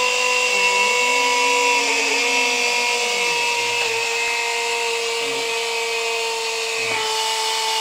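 Pneumatic air drill mounted in a drilling stand, running steadily as its bit bores into a metal plate: a steady whine over a hiss of air, the pitch dipping slightly about seven seconds in.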